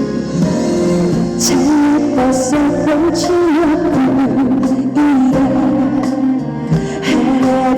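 A woman singing a calm, slow trot ballad live over instrumental accompaniment.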